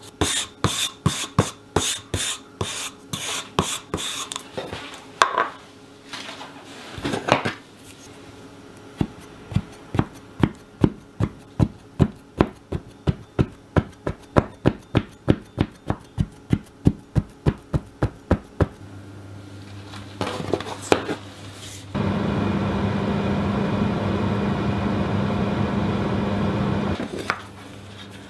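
A plastic measuring cup tapping as it presses tart dough into a fluted tart pan, quick taps about four a second. Then a long even run of light taps, about three a second, as the crust base is pricked. Near the end comes a steady rushing noise for about five seconds.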